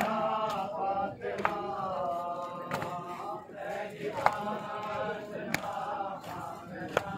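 Men's voices chanting a Muharram noha lament together in long sung lines, with sharp slaps of hands striking chests (matam) about every second and a half.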